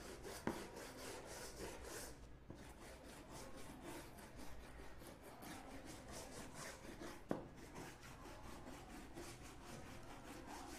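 Toothbrush bristles scrubbing the circuit boards of desktop RAM modules wet with isopropyl alcohol: a soft, rhythmic scratching of quick back-and-forth strokes, with a sharper tap about seven seconds in.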